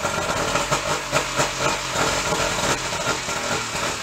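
Oil-injected three-cylinder 90 hp two-stroke outboard running on flushing muffs, having just caught on its first cold start after sitting all winter.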